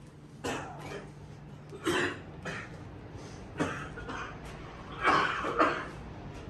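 A person coughing: a series of short coughs, the loudest two close together near the end.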